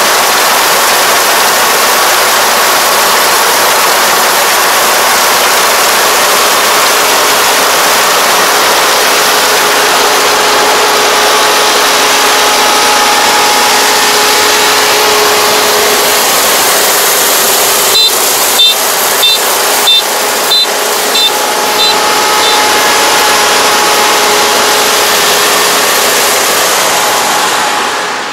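Kubota ER470 combine harvester running at close range while cutting lodged rice: a loud, steady mechanical drone of engine and harvesting works. About two-thirds of the way through, a string of short high beeps from the machine's warning buzzer sounds for a few seconds, and near the end the machine noise falls away.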